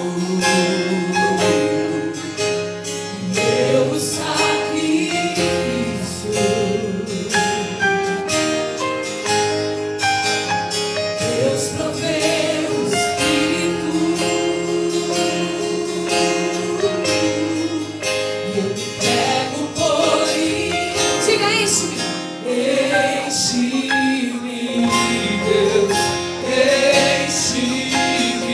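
Live worship music: a woman leads the singing, with a group of backing singers and a band with guitar behind her.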